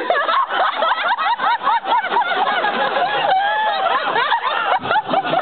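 Small audience laughing, many voices overlapping in a dense wash of laughter.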